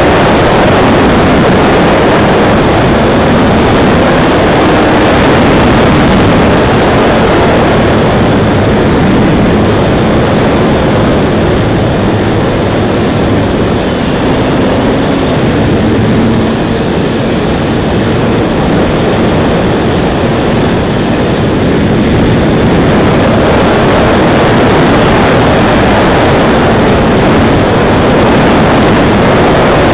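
Wind rush and motor and propeller noise of a FunCub radio-controlled model plane in flight, heard through a camera mounted on the plane: a loud, steady rushing that eases a little for several seconds in the middle, then picks up again.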